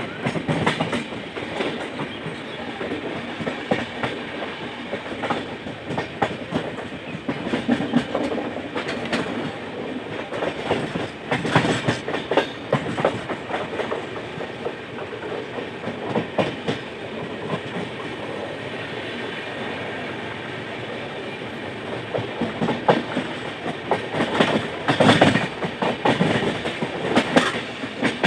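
Moving passenger train's wheels clattering over the rail joints under a steady running noise, with runs of louder clacks about twelve seconds in and again near the end.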